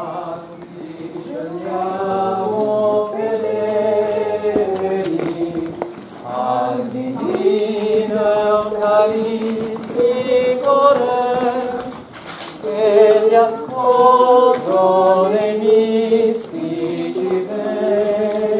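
A group of men and women in a Corpus Domini procession singing a Catholic hymn together: slow phrases of long held notes, with short pauses between phrases about six and twelve seconds in.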